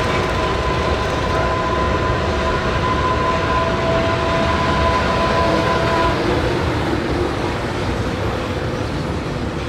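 A JR Freight EH500 electric locomotive passes slowly, hauling a train of oil tank wagons. A steady two-tone whine from the locomotive stops about six seconds in, leaving the rolling rumble of the tank wagons over the rails.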